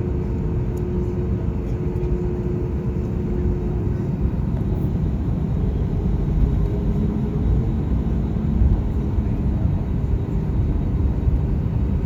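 Airliner cabin noise while taxiing after landing: a steady low rumble with a faint engine hum, one hum fading away about four seconds in and a lower one coming and going near the middle.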